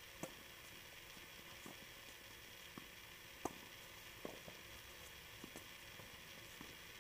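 Tennis balls struck by rackets and bouncing on a hard court during a doubles rally: faint, sharp pops a second or so apart, the loudest about three and a half seconds in, over a steady hiss.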